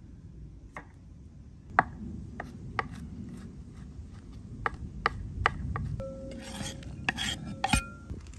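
Knife chopping onion on a wooden cutting board, a run of irregular sharp taps. About six seconds in, the chopped onion is scraped off the board into a ceramic plate with a rasping slide and a few clinks.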